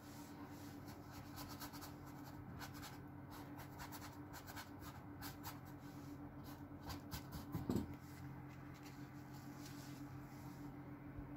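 Bristle brush scrubbing and scratching oil paint onto canvas in short, irregular strokes over a faint steady hum. A single dull bump comes about three-quarters of the way through.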